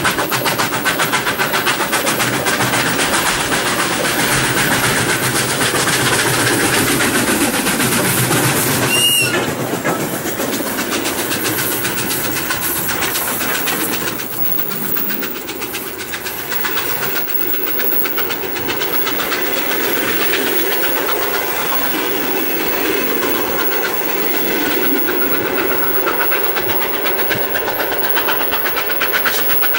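A pair of Soviet L-class steam locomotives pulling a passenger train pass close by, followed by the coaches rolling past with their wheels clattering over the rail joints.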